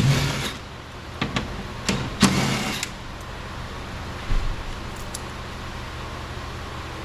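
Clicks and short clattering of car door parts being handled, loudest at the very start and around two seconds in, then a single small knock about four seconds in over a steady low hum.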